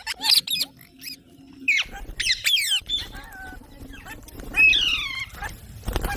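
Rose-ringed (Indian ringneck) parakeets calling in short, sharp squawks and chirps that sweep quickly up and down in pitch, in bursts about half a second, two seconds and five seconds in. A brief rustling noise comes near the end.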